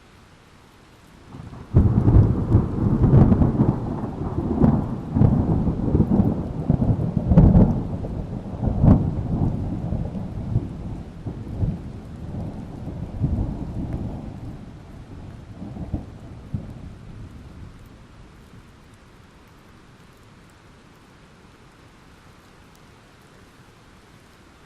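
A long peal of thunder over steady rain. It breaks suddenly about a second and a half in and rumbles with repeated cracks for about fifteen seconds, loudest in the middle, then fades away and leaves only the rain.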